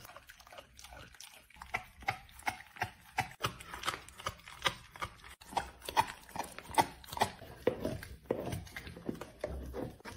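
Rottweiler chewing and crunching a raw meaty bone: sharp, irregular crunches and wet gnawing a few times a second, getting louder after the first couple of seconds.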